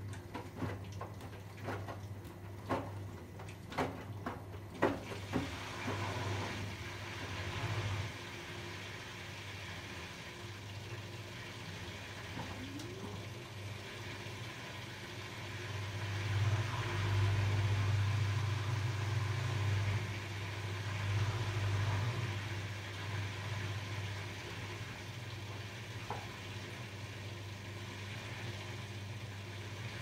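Arçelik 8120 PMG front-loading washing machine on its rinse cycle: the drum turning wet laundry over a steady motor hum, with a hissing, water-like swish. Several knocks in the first few seconds, and the hum grows louder for a few seconds around the middle.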